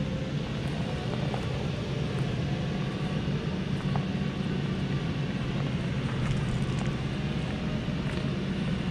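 A four-wheel-drive truck's engine running at a steady pitch as it climbs a rocky trail, with a few light clicks and knocks.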